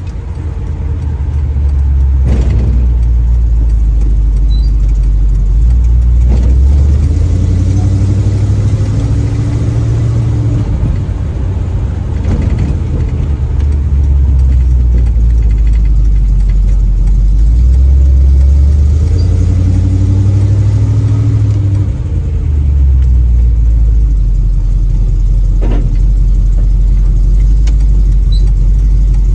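Small-block Chevy 350 V8 of a 1936 Chevy coupe running through its new exhaust while driving, heard from inside the cabin. The engine note climbs and falls back twice.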